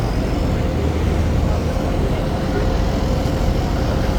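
Boat engine running steadily, a constant low rumble with a faint steady hum.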